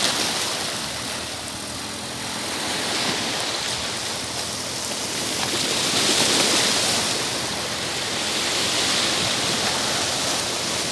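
Shallow sea water washing and lapping at the shore, a steady rushing hiss that swells and eases, loudest about six seconds in.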